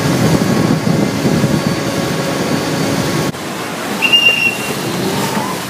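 Loud running noise of a river passenger boat's engine and churning wake, which drops suddenly about three seconds in. About a second later, as the boat comes alongside the pier, a short shrill whistle blast sounds: the kind of whistle a Chao Phraya express-boat crew uses to signal the helmsman when docking.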